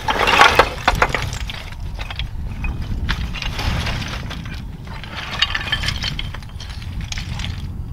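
Footsteps scrambling on loose slate scree: flat rock fragments clattering and clinking against each other in uneven bursts, loudest about a second in, over a low steady rumble.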